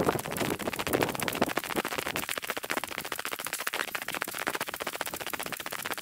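Footsteps crunching in snow while walking, a dense, steady crackle.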